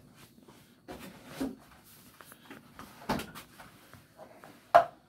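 Scattered knocks and bumps as a plastic gallon jug of milk is fetched and handled, with one sharp knock near the end, the loudest sound.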